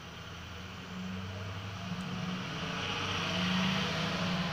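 A car driving past on the wet street, the hiss of its tyres on the wet road swelling to a peak near the end, over a steady low hum.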